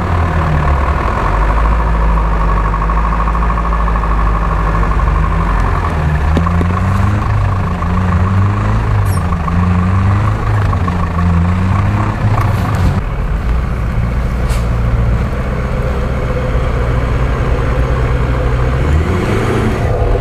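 GAZ-66 truck's engine revving up and falling back again and again as it crawls off-road, with a few short knocks. After a sudden change about two-thirds through, a Ford F-250 pickup's engine runs steadily at low revs and picks up near the end.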